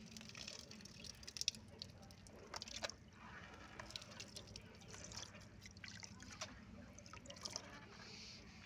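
Water splashing and dripping in a plastic tub of water as water balloons are squeezed and thin jets of water squirt out: a scatter of small splashes and drips, the loudest about one and a half seconds in, over a low steady hum.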